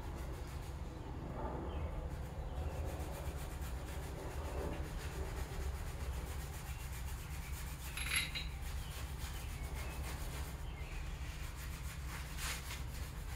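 A Scotch-Brite abrasive pad rubbed by hand over the surfaces of a 1999 Mustang Cobra's aluminium engine block to clean them: a steady scrubbing rasp, with a short sharp click about eight seconds in.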